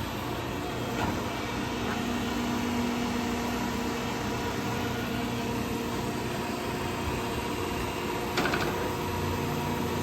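Kingston HR3000 engine lathe running with its spindle turning at 122 RPM: a steady mechanical hum with several even tones, a small knock about a second in and a short rattle near the end.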